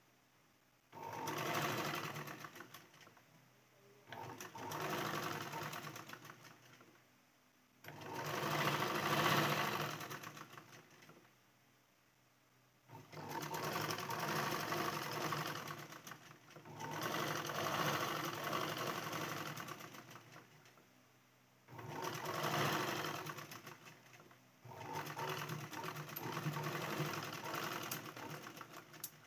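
Black domestic sewing machine stitching in about seven runs of a few seconds each, with short pauses between, as gota trim is sewn along the blouse's rounded edge.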